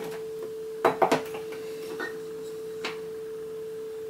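A wooden spoon knocks and scrapes in a plastic mixing bowl of dry batter ingredients, with a quick run of sharp knocks about a second in and a few lighter taps later. A constant steady hum sounds underneath.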